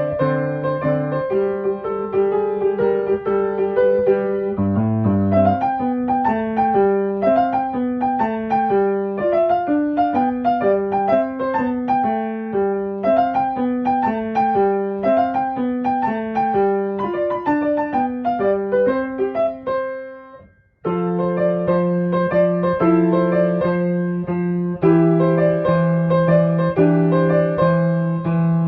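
Background piano music: a gentle melody of flowing broken chords, which fades out about twenty seconds in and starts again a second later.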